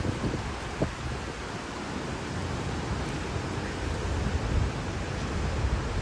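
Hurricane wind blowing steadily, gusting against the microphone in low rumbles, with a short knock about a second in.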